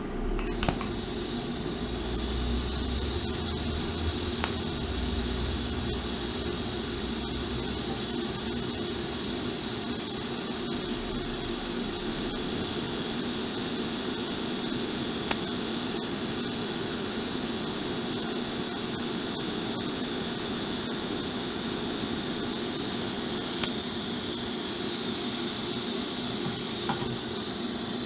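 TIG welding arc on a cracked motorcycle frame, a steady hiss with a low hum underneath. It starts abruptly, carries a few faint clicks, and cuts off about a second before the end.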